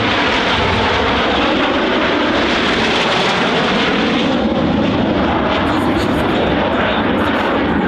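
Jet noise from Aermacchi MB-339 jet trainers, with Rolls-Royce Viper turbojets, flying a display: a loud, steady rush, strongest in the middle and easing off a little in the second half.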